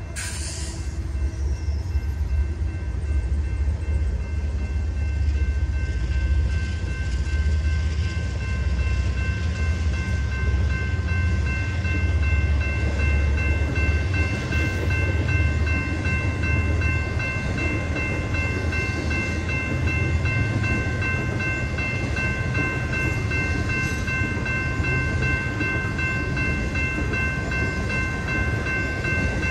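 BNSF diesel freight train passing over a grade crossing: the last locomotives go by, then intermodal container and trailer cars roll past with a steady low rumble of wheels on rail. Throughout, several thin, steady high tones sound, fitting the crossing's warning bell ringing.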